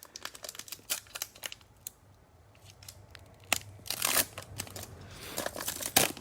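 Trading cards being handled by hand: a run of light clicks, then several short scraping rustles of card and plastic.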